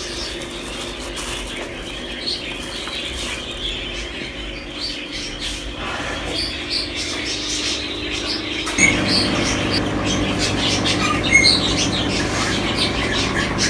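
Small caged parrots chirping and twittering, many short high calls throughout. A steady low hum joins about nine seconds in.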